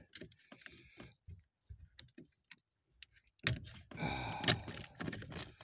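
Scattered light clicks and ticks of hands working wiring and plastic trim under a car's dashboard, then a louder stretch of clicking and rustling about three and a half seconds in.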